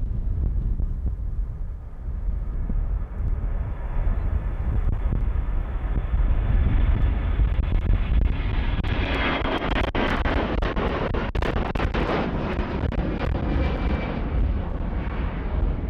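Jet airliner at takeoff power passing by, the Airbus A350's Rolls-Royce Trent XWB engines: the roar builds to a peak with a whining fan tone about nine to twelve seconds in, then starts to fade.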